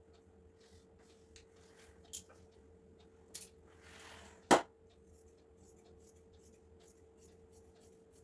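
Light handling of fabric, tape measure and metal tailoring scissors on a tiled floor: soft rustles and small clicks, with one sharp knock about four and a half seconds in as the scissors are handled against the floor. A faint steady hum runs underneath.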